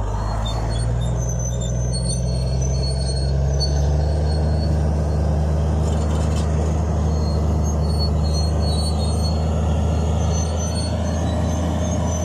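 Heavy diesel engine running steadily at low revs, a deep drone that grows a little louder a few seconds in.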